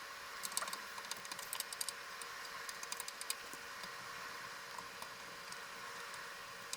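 Faint scratching and small clicks from adhesive residue being scraped off a PC case side panel, busy for the first few seconds and then thinning out, over a steady background hiss.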